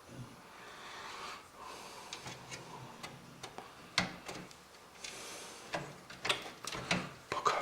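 Scattered light clicks and taps of screws and metal parts of a PC case being handled, with a sharper click about four seconds in and a run of clicks near the end.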